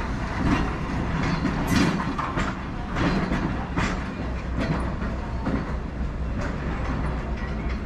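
Vintage ex-Hannover streetcar pulling away and rolling over the track switches, a steady low hum under a series of sharp, unevenly spaced wheel clacks over the rail joints and points.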